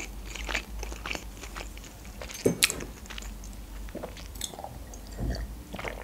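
Close-miked chewing and wet mouth sounds, then sips and swallows from a glass, heard as scattered small clicks and smacks.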